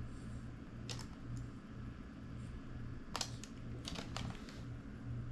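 A few sharp clicks from handling a Sony CCD-TRV41 camcorder during tape playback, over a steady low hum; no playback audio comes from the camcorder's speaker.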